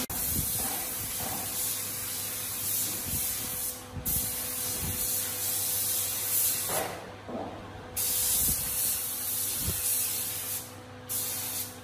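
Compressed-air spray gun hissing as it sprays a glossy finish onto solid wood, cutting out briefly three times as the trigger is released.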